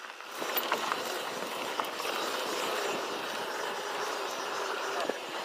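Mountain bike rolling along a dirt singletrack trail: a steady noise of tyres on dirt, with scattered clicks and rattles from the bike.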